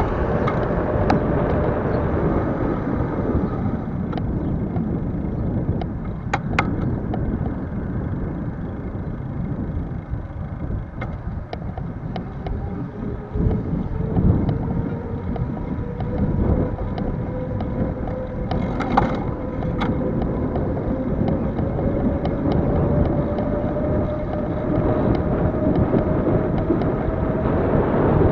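Bicycle rolling along an asphalt path: tyre rumble and wind buffeting the microphone. A steady hum sinks slowly in pitch and then climbs back. Scattered small clicks and knocks come through.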